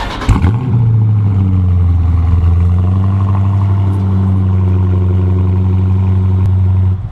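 Dodge Charger engine starting, its note rising about half a second in, then idling steadily before it cuts off near the end.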